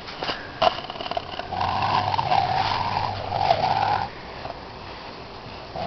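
Pit bull growling over its food, a wavering growl of about two and a half seconds, preceded by a couple of sharp clicks; food guarding.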